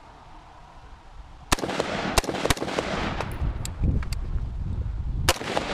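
AR-15 rifle shots: several sharp reports at uneven intervals starting about a second and a half in, over a steady rush of noise.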